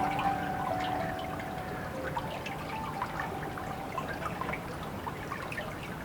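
Water trickling and dripping steadily, with a few soft bell-like tones held and fading away over the first few seconds.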